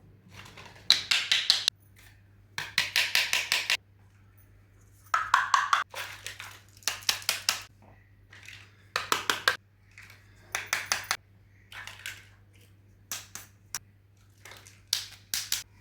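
Small plastic miniature toy kitchen pieces handled and clicking together in short runs of rapid taps, with pauses between them, over a faint steady low hum.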